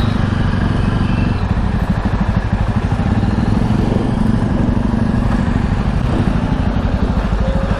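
Jawa 42 motorcycle's single-cylinder engine running at idle as the bike creeps along at walking pace, a steady, even exhaust beat.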